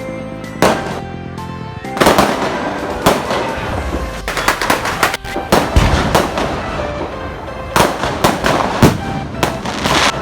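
New Year fireworks and firecrackers going off in many irregular bangs and crackles, some in quick clusters, over music playing.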